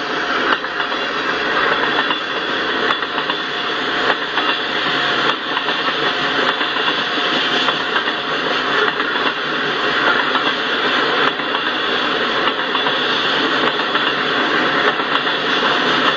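Freight train of tank cars rolling steadily past: a constant rush of steel wheels on rail, with faint clicks now and then as wheels cross rail joints.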